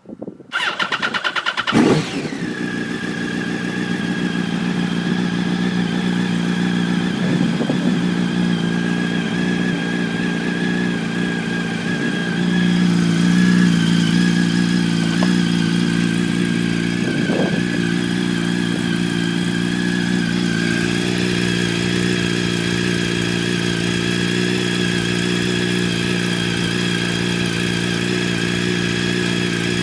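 2006 Yamaha R1's inline-four engine, through an Arata full titanium exhaust, cranking on the starter and catching about two seconds in with a quick rev, then idling steadily on a cold start. The idle swells slightly about halfway through and blips briefly twice; the owner feels the idle surges a bit.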